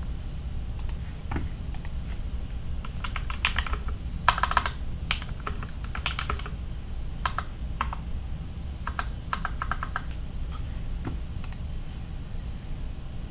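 Typing on a modified GK61 60% mechanical keyboard. It has Gateron optical brown switches lubed with Krytox 105 and fitted with switch films, Cherry plate-mount stabilizers and GMK keycaps. Keystrokes come in uneven bursts, busiest about four to five seconds in.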